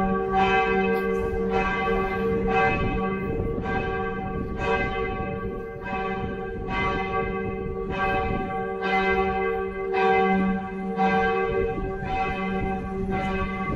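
Church bells ringing, a stroke about once a second, each one ringing on and overlapping the next.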